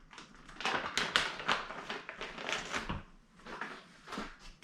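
Packaging being opened and handled by hand: rapid irregular crackling and rustling with small knocks, busiest in the first three seconds, then a few scattered handling noises.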